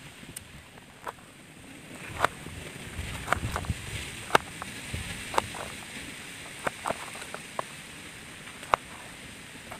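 Small fire of dry rice straw and sticks crackling, with sharp irregular pops a few times a second.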